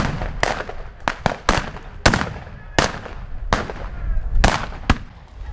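A ragged volley of rifle shots, about ten sharp cracks at uneven intervals, each with a short echo: reenactors firing blanks from period long guns.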